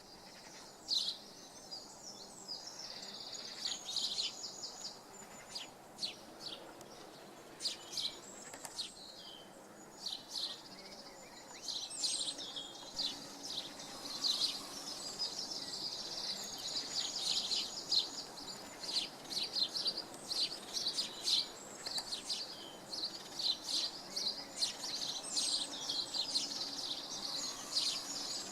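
Wild birds singing and calling: many short high-pitched chirps and trills, getting busier about halfway through, over a faint steady background noise.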